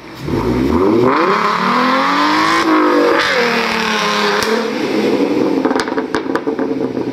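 Car engine revving hard in a burnout, its pitch climbing, dipping briefly near the middle and climbing again before holding steady, over the hiss of spinning tyres. A few sharp pops come near the end.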